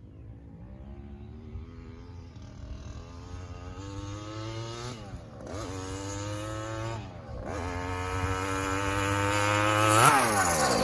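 Two-stroke Poulan chainsaw engine of about 60 cc, fitted with an expansion chamber, driving a motorized bicycle and revving up under way. Its pitch climbs, dips sharply and climbs again twice as it shifts gears, and it gets louder before the pitch drops steeply near the end.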